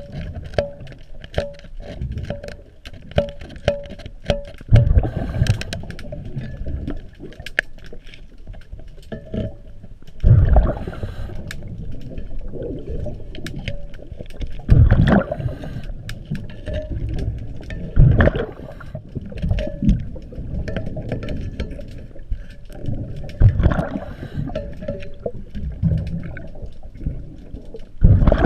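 Scuba diver breathing through a regulator underwater: bursts of exhaled bubbles every four to five seconds, with small clicks and knocks from hands working at the boat's propeller shaft in between.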